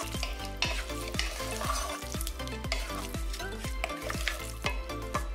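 Wooden spoon stirring hot cooked ground pork and herbs around a stainless steel bowl: a wet scraping, stirring noise. Background music with a steady beat plays throughout.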